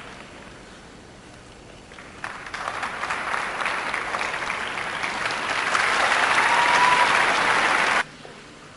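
Arena crowd applauding, quieter at first, then swelling about two seconds in and stopping abruptly near the end.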